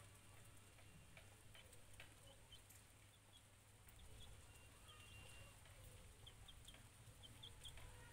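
Young chick peeping: faint, short high-pitched peeps, a few scattered at first and coming in quicker runs toward the end.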